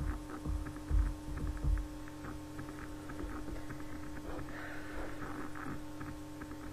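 Soft bumps and rustling of a person shifting in bed close to the microphone, over a steady electrical hum. The bumps are loudest in the first two seconds, and a soft rustle comes about halfway through.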